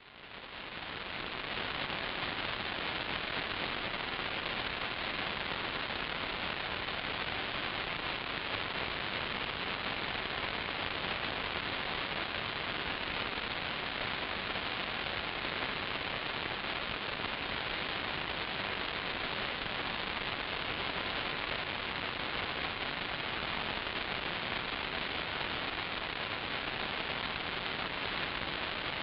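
Steady static hiss with no tones or rhythm, fading in over the first second. It is typical of the empty audio channel of an analog 5.8 GHz FPV video downlink.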